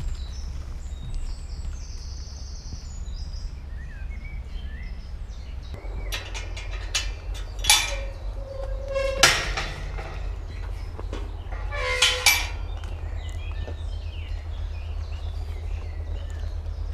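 Woodland ambience: a steady low rumble under faint bird chirps. A few louder, harsh animal calls come about halfway through and again a little later.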